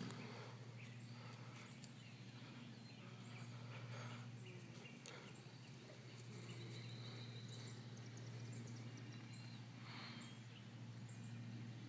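Faint outdoor ambience with a steady low hum and the soft, scattered hoofbeats of a pony walking on grass.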